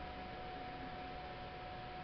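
Steady background hiss with a thin, unbroken high tone running through it; no button click or other distinct event stands out.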